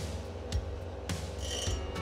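Background music with a steady beat, about two beats a second. Under it runs the hum of a bench grinder. From about halfway in there are short spells of high-pitched grinding as a drill bit in a sharpening jig is worked against the grinding wheel.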